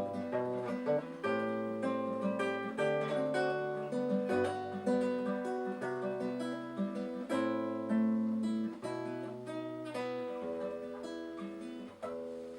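Acoustic guitar playing the instrumental close of a bard song, plucked and strummed chords that die away near the end.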